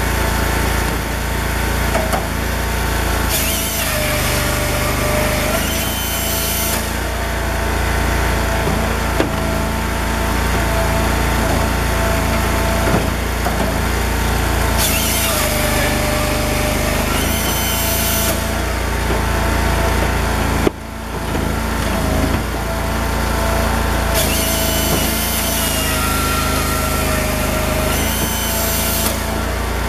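Cord King M1820 firewood processor running steadily as it cuts and splits logs. Three times, the engine note sags under load and a high-pitched hissing burst comes in, then eases off again.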